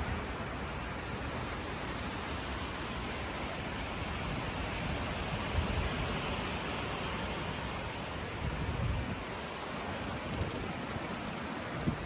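Steady outdoor background hiss with no distinct source, broken by a few low rumbles from wind on the microphone.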